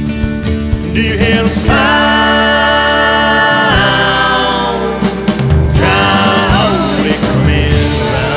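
A country-style song with a singer holding long notes over steady instrumental accompaniment.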